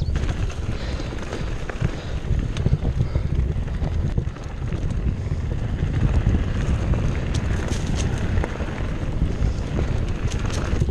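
Steady wind noise on a chest-mounted GoPro's microphone as a Cannondale Jekyll full-suspension mountain bike rolls down a dirt singletrack, with scattered small clicks and rattles from the tyres and bike over the trail.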